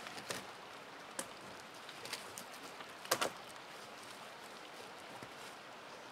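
Scattered knocks and cracks of dead wood as a pole is worked into place against a wall of stacked logs and branches, with a short cluster of louder cracks about three seconds in, over a steady outdoor hiss.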